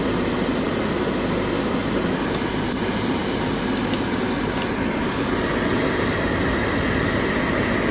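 Steady rumbling noise of machinery or a vehicle, with a faint high whine coming in about five seconds in.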